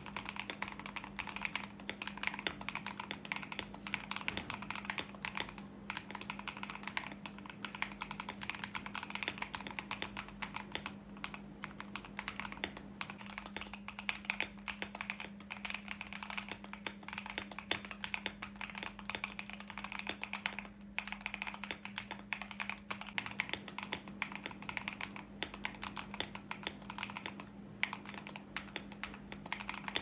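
Fast, continuous typing on an Akko ACR64 mechanical keyboard, a dense run of key clacks. The sound alternates between Akko Custom Silver and Dareu Blue Sky V2 switches. A steady low hum runs underneath.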